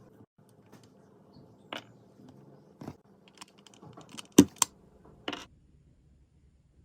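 Scattered small clicks and taps, irregular like typing, with a sharp knock about four and a half seconds in and a faint low hum that stops soon after.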